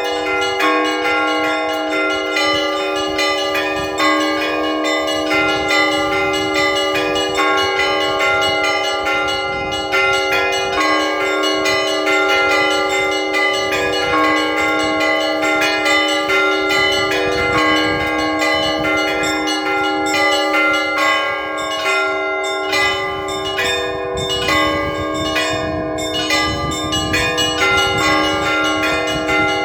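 Russian Orthodox church bells being rung: many bells struck in quick succession in a dense, continuous peal, the small bells' rapid strokes over the ringing tones of the larger ones.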